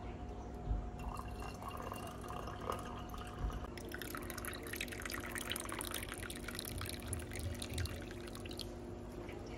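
Liquid pouring and dripping, turning to a denser crackling hiss about four seconds in, over a faint steady hum.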